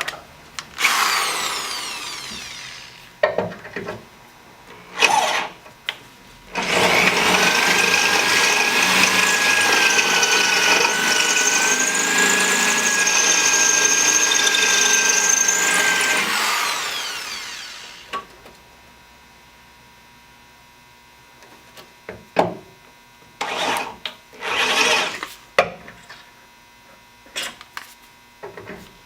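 Electric drill with a 7/32-inch bit drilling into a seized broken bolt in a car frame rail: a short spin about a second in, then a long steady run with a high whine that winds down after about ten seconds. Scattered clicks and knocks of tool handling follow.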